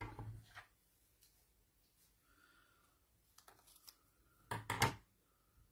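Small craft scissors snipping a strip of stamped cardstock: a quick cluster of sharp snips about four and a half seconds in. Fainter paper handling comes before it.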